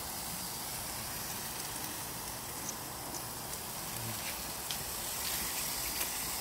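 Chicken wings sizzling on the grates of a hot gas barbecue grill, a steady crackling hiss, with a few faint clicks of metal tongs as the wings are turned.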